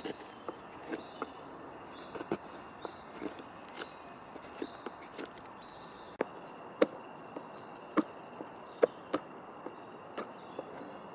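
Carving gouge cutting fresh green birch wood by hand, a series of irregular sharp clicks and snaps as each stroke slices off a chip, the loudest few coming about two-thirds of the way through.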